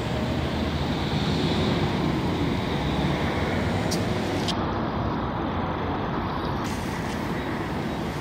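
Steady low engine rumble with a hiss over it, unchanging throughout.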